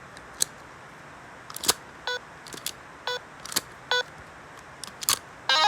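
Handheld electronic reaction-game toy being worked through its menu: sharp plastic clicks from its controls, four of them followed by a short electronic beep. Just before the end comes a quick run of rapid ticks.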